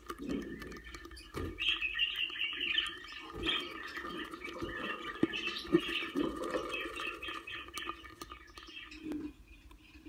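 Budgerigar chicks in a nest box chirping in a rapid, busy run that starts about a second and a half in and thins out near the end.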